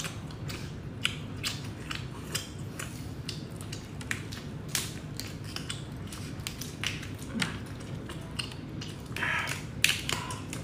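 Cooked tiger prawn shells being peeled and pulled apart by hand, with chewing: irregular sharp crackles and clicks over a steady low hum, busiest about nine seconds in.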